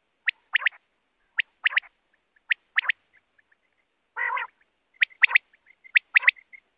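Common quail's three-note 'wet-my-lips' song: a single sharp note followed by a quick pair, repeated about once a second. A short, harsher burst comes about four seconds in, and fainter overlapping calls fill the gaps near the end.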